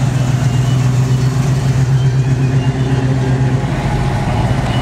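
A car engine idling steadily nearby, a low even hum with no revving.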